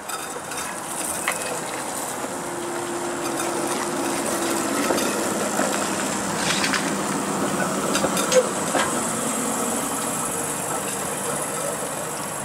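A Canadian Light Rail Vehicle (CLRV) streetcar rolling past close by: a steady running noise with a high whine that grows louder towards the middle as it passes. Several sharp clicks from the wheels on the track come in the second half.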